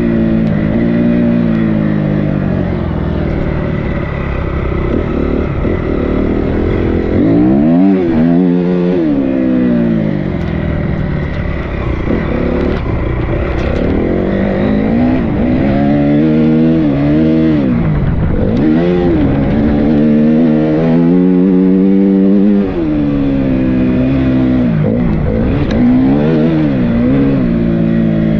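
Dirt bike engine under way, revving up and dropping back again and again as the rider accelerates and shifts.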